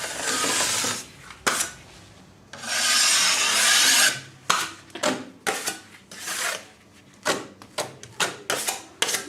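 Rasping strokes of a hand tool scraped over a hard surface: two long strokes, then a run of short, quick ones.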